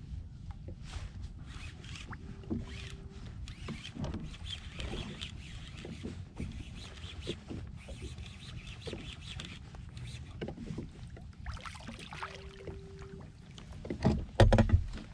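Water lapping and knocking against a Hobie Outback kayak's hull, with scattered small clicks and a short steady beep twice. A loud low thump near the end.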